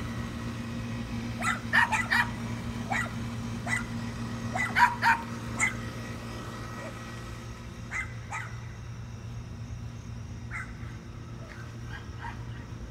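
A dog barking: a quick run of short barks in the first half, then only a few scattered ones. A steady low hum runs underneath.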